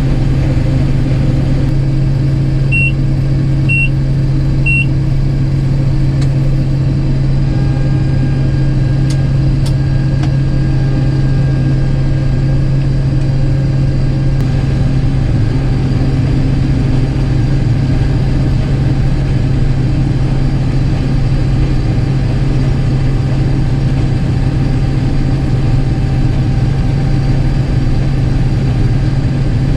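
Combine harvester running steadily with its separator engaged and the cleaning fan turned down to about 700 RPM for light oats, a constant low hum under the machine noise. Three short, high electronic beeps sound about a second apart, starting about three seconds in.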